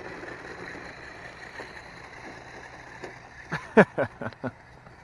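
Small electric motor of a toy-grade RC truck running with a faint steady whine, then, about three and a half seconds in, a quick run of five sharp knocks, the second the loudest.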